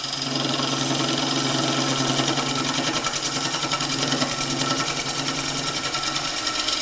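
Bowl gouge making a push cut on a wooden bowl blank spinning on a Coronet Herald lathe, laying the fibres down and throwing long shavings. It makes a steady, rapidly pulsing cutting noise over a low hum.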